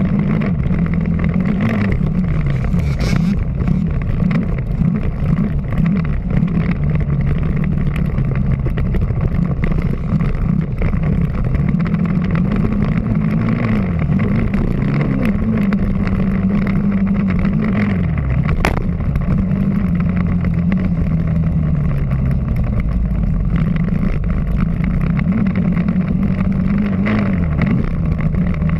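Dirt bike engine under way on a dirt track, revving up and dropping back over and over with the throttle and gear changes, heard close up from an onboard camera with wind and dirt noise. A single sharp knock about two-thirds of the way through.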